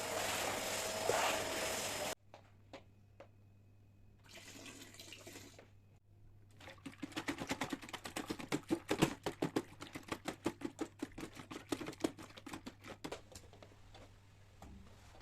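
A household cleaning motor, such as a vacuum cleaner's, runs steadily and switches off abruptly about two seconds in. After a brief hiss comes a quick run of rubbing or scrubbing strokes, several a second, which fades near the end.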